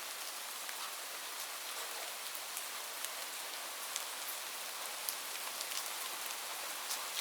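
Light rain falling steadily: an even hiss with scattered sharp drop ticks.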